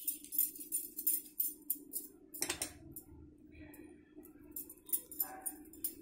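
Butter being rubbed by hand onto a fire-roasted corn cob over a steel plate: irregular crackly rubbing and light clinks, with one louder knock about two and a half seconds in. A steady low hum runs underneath.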